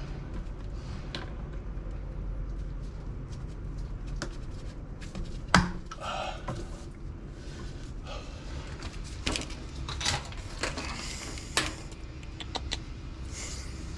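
Scattered clicks and knocks of tools and plumbing fittings being handled, with one sharper knock about five and a half seconds in, over a steady low hum.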